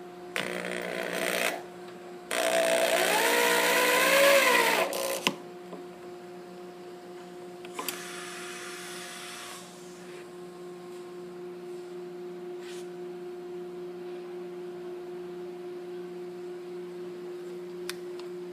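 Power drill boring small holes into the wooden edge of a harp soundbox: a short burst, then a longer burst of about three seconds whose motor pitch rises and falls, then a fainter third burst. A steady low hum runs underneath.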